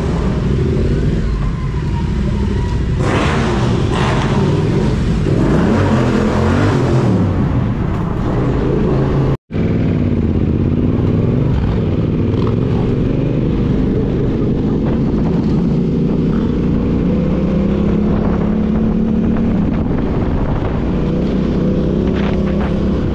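Motorcycle engine running with changing revs, the pitch rising and falling. About nine seconds in the sound cuts out completely for an instant.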